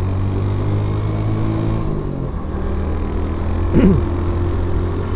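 Motor scooter engine running steadily under way, its pitch easing down slightly over the first two seconds. A brief louder sound with a quick rise and fall in pitch comes about four seconds in.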